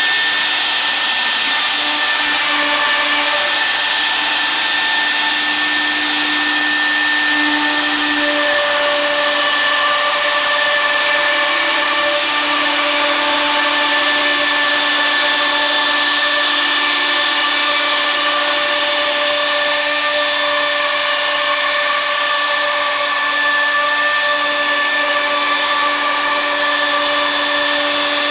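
CNC router's high-speed spindle running and cutting grooves into a wooden cabinet door panel: a steady high whine with several held tones over a rushing noise, some of the tones changing as the cutter moves along the cut.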